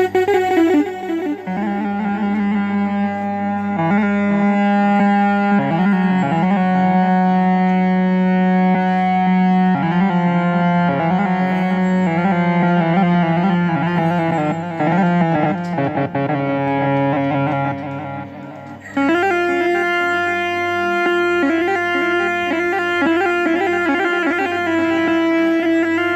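Korg Triton synthesizer keyboard playing a slow Arabic ataba/mawwal melody on a rababa (rebab) sound, with held, gliding notes over a sustained low drone. The melody breaks off briefly about three-quarters of the way through, then resumes with a fuller, brighter texture.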